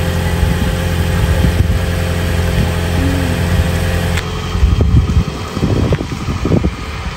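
Toyota Prius hybrid's engine idling with a steady low hum that stops abruptly about four seconds in. Uneven low rumbling follows as the car moves off.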